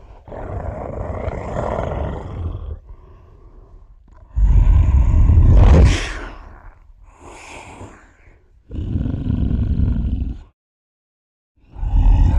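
A series of creature roar and growl sound effects, one after another with short gaps: a long growl, a louder roar about four seconds in, shorter growls after it, a second of silence, then another roar near the end.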